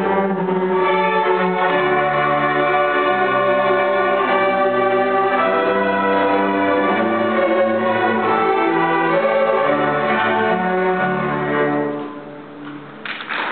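School string orchestra playing a classical piece, violins bowing long held chords that change about once a second. The last chord fades away about twelve seconds in, and applause breaks out near the end.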